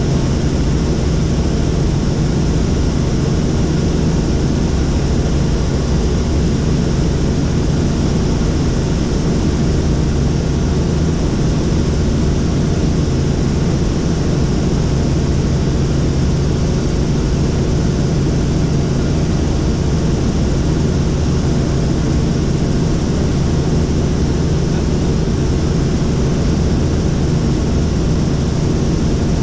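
Helicopter in flight heard from inside the cabin: a loud, steady drone of engine and rotor that holds unchanged throughout.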